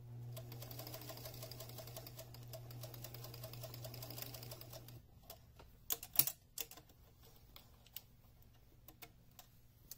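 Electric sewing machine running at a steady speed, stitching a straight seam with a hum and a rapid even needle rhythm; it stops about halfway through. A few sharp clicks and knocks follow as the fabric is handled at the machine.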